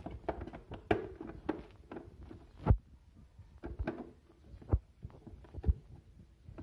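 Plastic air filter side cover of a Suzuki Raider 150 being pressed and snapped into place by hand: scattered light clicks and plastic rattles, with about four louder dull knocks.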